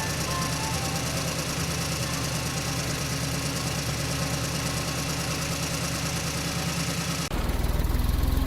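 Engine idling steadily with a fast, even pulse; about seven seconds in it cuts abruptly to a louder, deeper engine sound.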